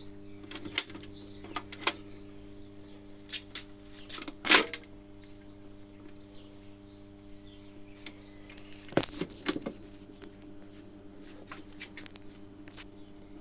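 HMV 2020 record player's automatic changer running through its cycle after being started: scattered clicks and clunks from the mechanism over a steady hum, with the loudest knock about four and a half seconds in and another cluster of clicks around nine seconds, as the tonearm moves across onto the record.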